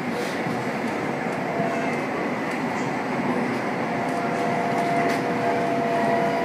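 Interior running noise of an SMRT C151A metro train car under way: a steady rail rumble with two faint steady tones through it, the higher one growing stronger about four seconds in.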